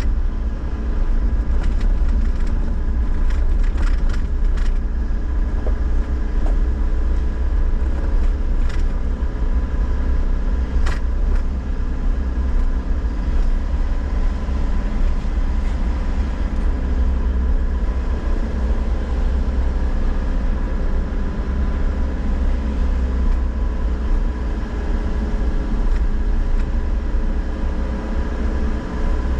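Car driving slowly on a concrete road, heard from inside the cabin: a steady low rumble of engine and tyres, with scattered clicks and knocks during the first half.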